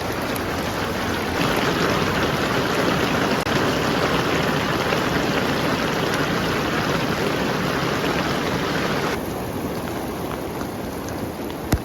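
Rain mixed with small hail falling steadily, a dense hiss. It grows louder soon after the start and drops back about nine seconds in. A single sharp click comes near the end.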